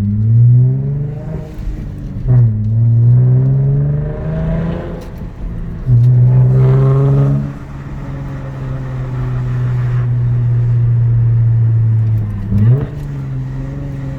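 Lexus IS250's V6 exhaust heard from inside the cabin, accelerating hard three times, with the engine note climbing and dropping back between pulls as the six-speed manual is shifted up. It then settles into a steady, loud cruise, with a brief dip and rise in revs near the end.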